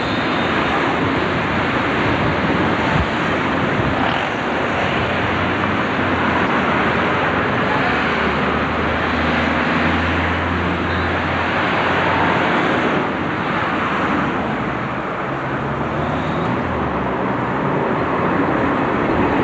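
Steady rushing noise of trams and street traffic, with a low hum in the middle.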